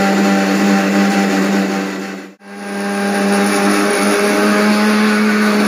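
Electric mixer grinder running, grinding soaked urad dal and rice into batter: a steady, loud motor hum that stops for a moment about two and a half seconds in and then starts again.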